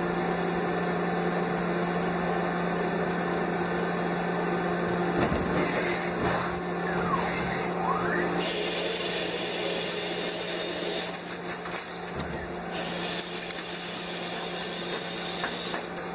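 Mazak Integrex multi-tasking lathe running, a steady machine hum with cutting noise as a drill and then a boring tool work inside the bore of a metal workpiece. A brief falling-then-rising whine comes about halfway, and scattered sharp clicks follow in the second half.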